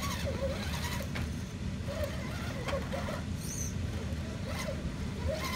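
RC rock crawler's small electric motor and gears whining in short bursts as it crawls over rock, with sharp clicks and scrapes of tyres and chassis on stone, over a steady low rumble.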